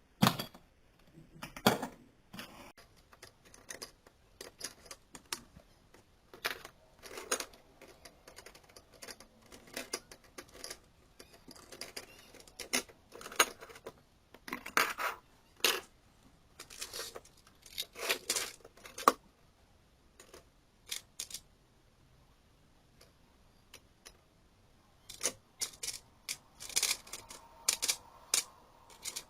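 Irregular small clicks, taps and light knocks from handling and fitting together the parts of a 12 V 5 A switch-mode power supply as it is reassembled, with a pause of a few seconds past the middle.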